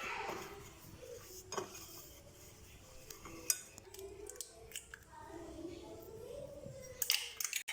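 A spoon stirring a thick paste of spice powders, cornflour and egg in a bowl, with scattered clinks of the spoon against the bowl.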